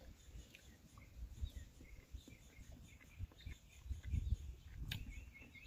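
Faint bird chirps in the background, short and repeated toward the end, over low muffled bumps and rustling close to the microphone, with one sharp click about five seconds in.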